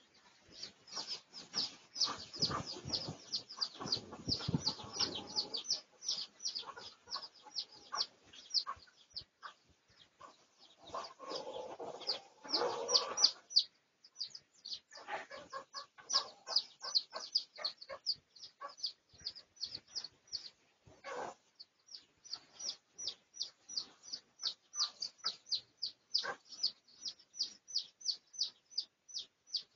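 Junglefowl in a poultry pen: short, high, falling chirps in quick succession, about four a second, with louder bursts of lower clucking a few seconds in and again near the middle.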